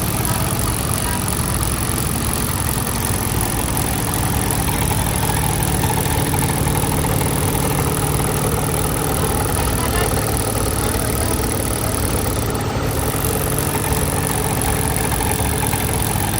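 Small asphalt compaction machine running steadily, its engine and vibration making a continuous, fast, even pulsing.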